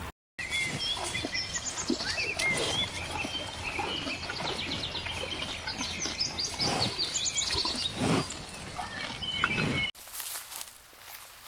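Small birds chirping and twittering over steady outdoor background noise. The sound drops out for a moment right at the start and changes abruptly near the end.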